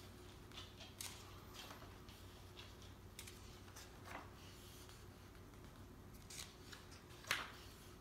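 Faint paper rustling and swishing as hands handle and turn the thick pages of a large hardcover art book, with soft light scrapes throughout and one louder page swish about seven seconds in.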